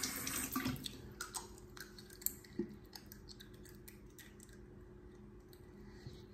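A bathroom sink tap running briefly and shutting off right at the start, then faint scattered clicks and soft mouth and handling sounds, with one sharper click about two and a half seconds in.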